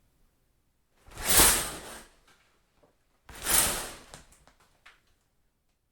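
Shower curtain pulled along its rod twice, each pull a swish of about a second that swells and fades, with a few faint clicks after the second pull.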